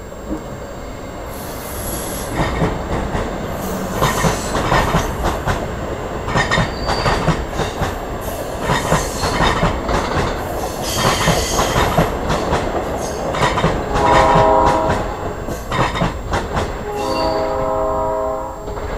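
South Shore Line electric multiple-unit commuter train passing at speed, its wheels clattering rapidly over the rail joints with a rushing rumble. Near the end a train horn sounds twice, a short blast and then a longer one.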